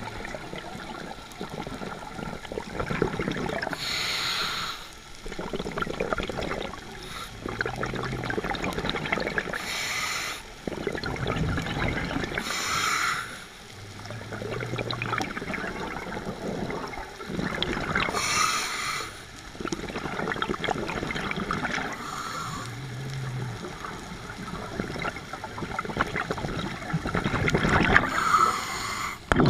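Scuba breathing through a regulator underwater: about six loud rushes of exhaled bubbles, a few seconds apart, over a steady rumbling water noise, with short low hums in between.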